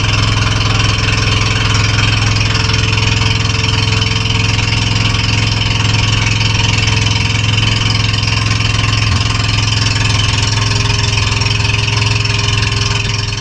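Outrigger boat's engine running steadily at a constant speed, heard close up from on board, with a strong low hum.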